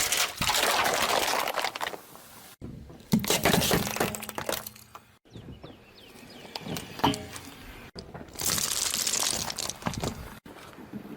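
Objects cracking, crunching and crumpling as a car tyre rolls over and crushes them, in a run of short clips cut together, with four abrupt cuts between them.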